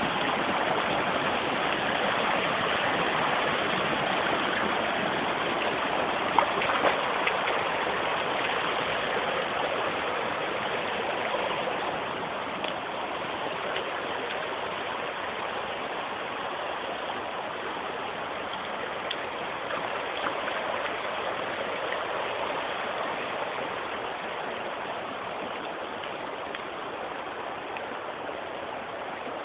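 Shallow water running over white travertine terraces: a steady rushing trickle that slowly grows quieter, with two brief knocks about six and seven seconds in.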